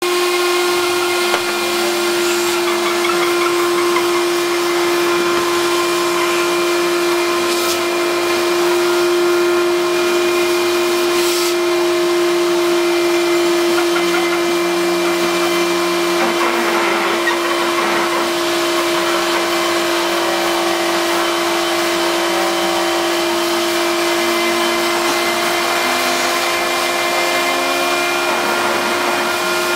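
Vacuum cleaner running steadily, its hose held at the cut of a CNC milling machine, together with the machine's router spindle giving a steady high whine as it mills balsa and plywood.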